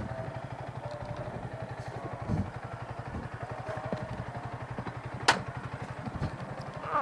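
Yamaha motorcycle engine idling with a steady, even pulsing beat, with a single sharp click about five seconds in.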